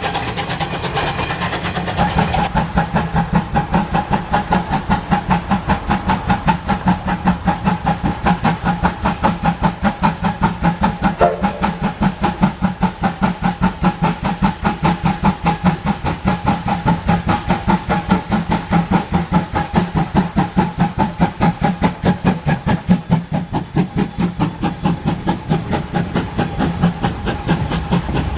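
C12 steam locomotive hauling a passenger train past, its exhaust chuffing in a steady rhythm of several beats a second, fading somewhat in the last few seconds as the coaches roll by.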